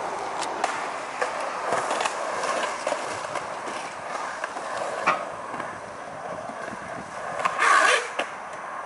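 Skateboard wheels rolling on concrete, with scattered sharp clicks and knocks and a louder scrape about half a second long near the end.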